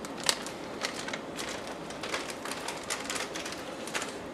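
Irregular sharp clicks and crinkles, a dozen or so, the loudest about a quarter second in, from a foil spice packet being shaken out over a pan and put down.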